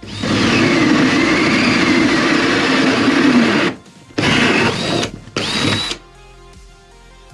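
Power drill boring a hole through the shed wall for an outlet: one run of nearly four seconds with the motor's whine sagging under load and recovering, then two short bursts that spin up.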